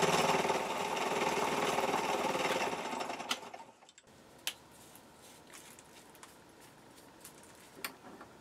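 Dore Westbury milling machine running steadily as an end mill cuts into an aluminium workpiece, fading out about three and a half seconds in. After that there are a few light clicks and knocks as the workpiece is handled in the vise.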